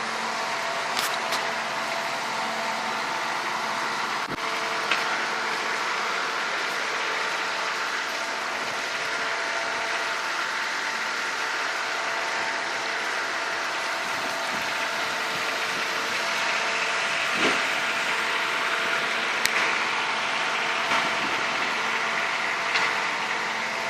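A motor running steadily under a constant hiss, with a few faint clicks.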